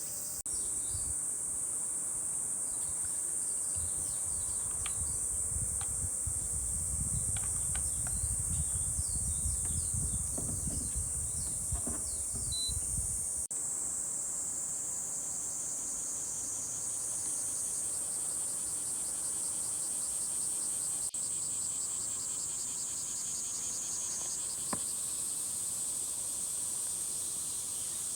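Insects trilling in a steady, high-pitched chorus, with scattered short chirps above it. A low rumble, like wind on the microphone, comes in for several seconds in the first half.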